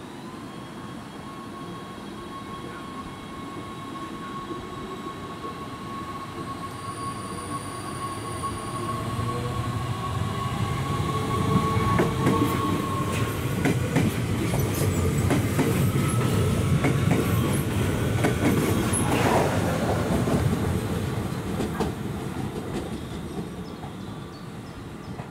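NS Sprinter Lighttrain electric multiple unit running along the station platform. It grows louder with a steady whine, then goes past with wheel clatter and clicks over the rail joints, a quick falling whine near the end of the pass, and fades away.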